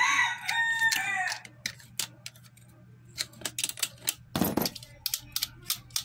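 A rooster crowing in the background for the first second or so. It is followed by sharp metal clicks and taps as the nuts holding the washing-machine motor together are unscrewed, with one louder knock about four and a half seconds in and a quick run of clicks near the end.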